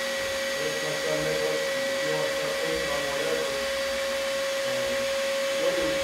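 Steady whir of an electric blower with a constant hum, with faint voices murmuring underneath.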